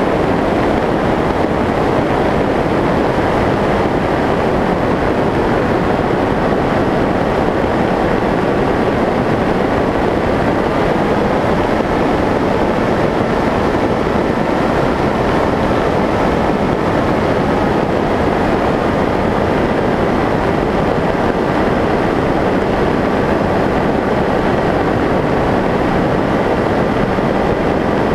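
Steady rush of wind over the onboard camera of a Skyshadow S800 FPV flying wing in cruise, with the faint whine of its electric pusher motor and propeller rising slightly in pitch midway and then settling back.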